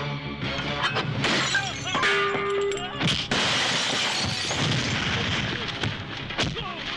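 Film fight sound effects: a loud shattering crash of glass and wood about three seconds in, as a man is thrown into a wooden cabinet, its debris trailing off over the next second or so. Sharp hits and strained cries come before and after it.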